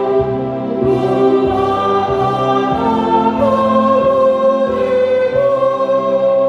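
A choir singing a hymn in parts, held notes moving together from chord to chord over a stepping bass line.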